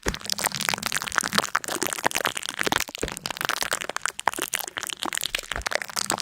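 Dense, rapid crackling and crunching of something brittle, with many sharp cracks close together. There are brief breaks right at the start and about three seconds in.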